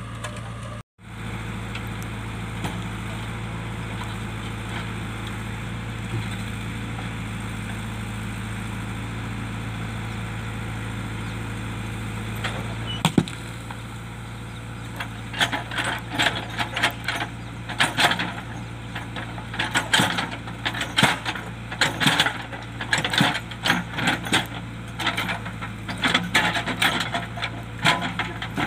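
A JCB backhoe loader's diesel engine runs steadily, cutting out for a moment about a second in. About halfway through, a run of sharp knocks and clattering begins as its bucket works among rocks.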